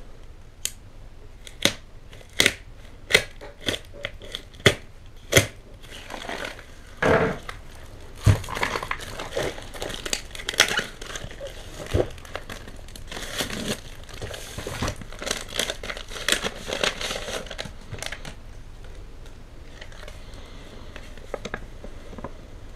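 A tape-wrapped cardboard package being opened. First comes a string of sharp snaps, about one every three-quarters of a second. Then packing tape and paper crinkle and tear, thinning to light rustling near the end.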